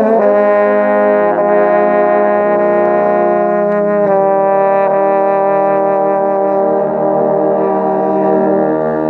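Two trombones playing a hymn duet, one on the tenor part and one on the bass part, in long sustained notes. The chord changes a few times early on, then a final chord is held for several seconds.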